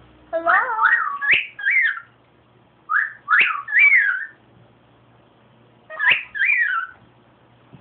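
Cockatiel whistling its song: three phrases of rising and falling whistled notes, each about a second or two long, with short pauses between.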